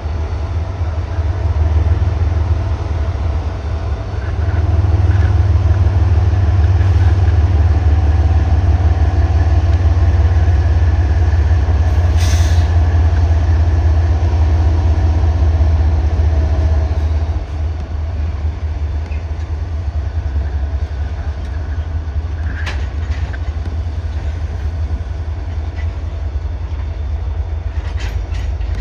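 Train rolling through a rail yard: a steady low rumble that swells about five seconds in and eases off after about seventeen seconds, with a short hiss about twelve seconds in.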